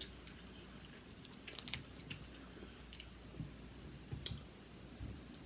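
Faint, close-up chewing, with a few sharp clicks and cracks of crab shell being picked apart: a cluster about a second and a half in, and one more about four seconds in.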